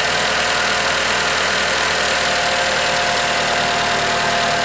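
Toyota 2AR-FE 2.5-litre four-cylinder engine idling steadily, with a steady high hiss over it.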